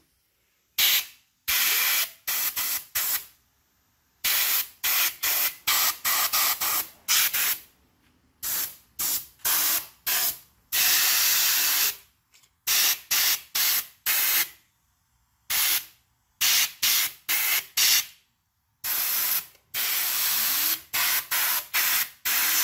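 Air compressor blow gun blasting compressed air into graphics card fans and heatsinks to blow the dust out, in dozens of short, abrupt hissing squirts with brief silences between them and a few longer blasts of about a second.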